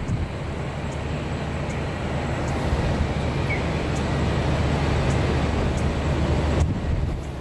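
Heavy truck engine rumbling as a prime mover hauls an oversize load, a low steady drone that grows louder and then drops away suddenly near the end.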